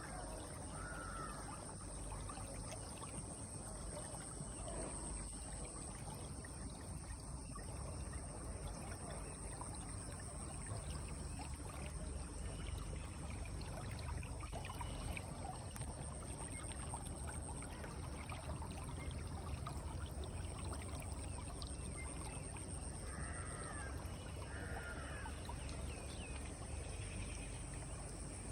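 Steady rush of flowing water with a constant high insect drone above it, and a few short bird calls, one near the start and a pair near the end.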